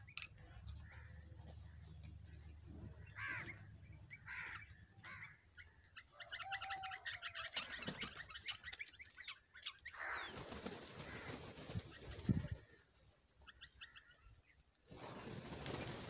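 House crows and common mynas calling while feeding, with bursts of wing flapping as birds take off, and one sharp thump about three-quarters of the way through.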